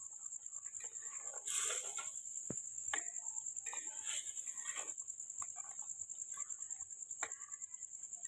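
Metal spoon stirring fish curry in a clay pot, with a few sharp knocks and scrapes of the spoon against the pot's rim and side. A steady high-pitched insect trill, likely crickets, runs underneath throughout.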